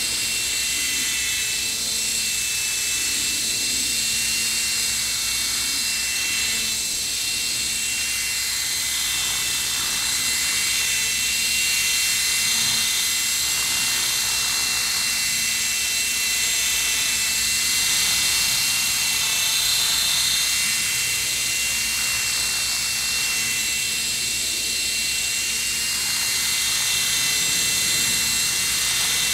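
Falcon 3D electric RC helicopter in flight: a steady high motor and gear whine over the hum of the rotor, wavering slightly in pitch as it hovers.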